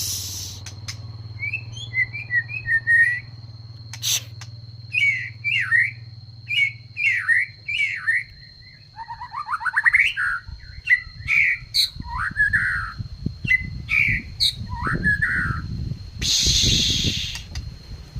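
A songbird singing a run of short, repeated chirping and warbling phrases with quick trills. A steady high whine runs underneath. Rustling noise comes in during the second half, with a loud burst of noise about 16 seconds in.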